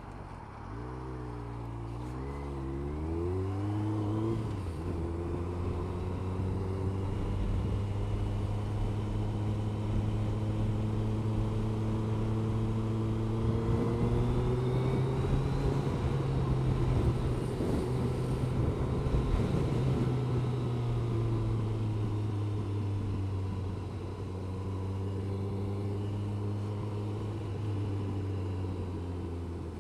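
Kawasaki ZZR-1200's inline-four engine pulling away and accelerating, its pitch climbing in quick steps through the gear changes over the first few seconds, then running steadily at speed. Wind noise builds midway, and the engine eases off, its pitch falling, a few seconds before the end.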